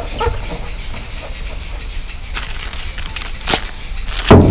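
Handling noise from gas bonnet struts: a few light clicks, a sharp clack about three and a half seconds in, then a heavier knock near the end, over a steady low hum.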